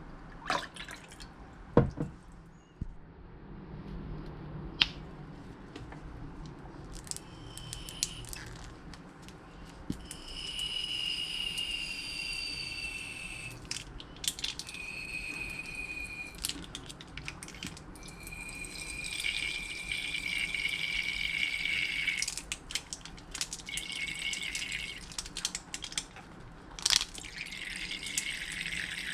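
Liquid trickling into a plastic measuring cup: first Worcestershire sauce poured from a bottle, then lemon juice squeezed from a plastic squeeze bottle in a thin stream that rings with a faint high tone and stops and starts several times. A few sharp clicks and taps of bottle and cup, the loudest near the start and one near the end.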